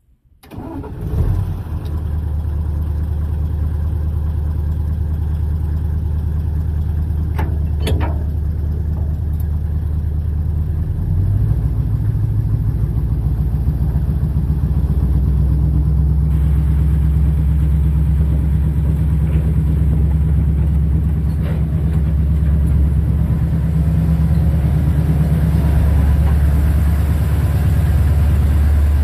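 Plymouth diesel mine locomotive engine starting about a second in, then running steadily, its note shifting twice along the way. A couple of sharp clicks sound around eight seconds in.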